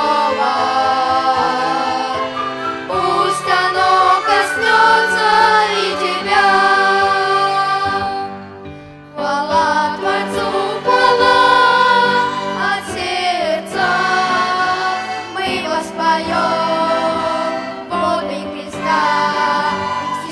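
Church choir singing a hymn with violin-ensemble accompaniment, breaking off briefly about eight seconds in before carrying on.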